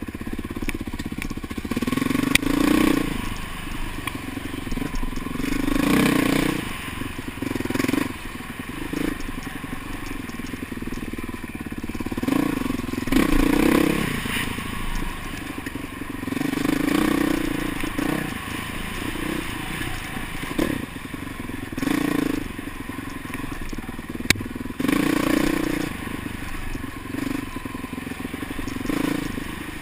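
Dirt bike engine revving up and easing off again and again, every few seconds, as it is ridden along a rough trail. Heard through a helmet camera, with a constant rushing noise and occasional sharp clicks and clatter.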